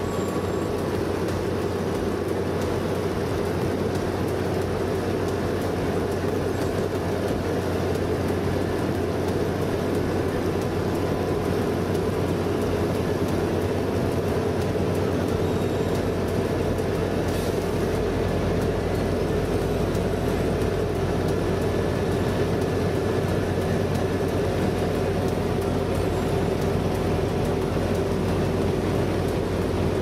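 Vögele Super 1900-2 tracked asphalt paver running steadily while spreading asphalt mix, a continuous machine drone from its diesel engine and spreading gear. The low rumble grows heavier about halfway through.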